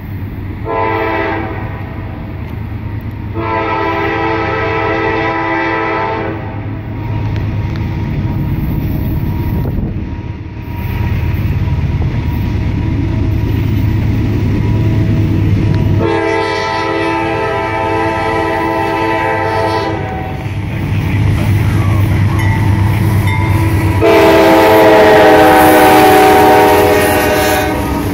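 Diesel freight locomotive horn sounding four blasts: a short one, then three long ones, each a chord of several tones, the last and loudest as the locomotive reaches the trackside. Underneath, the engine rumble of the approaching freight train grows steadily louder.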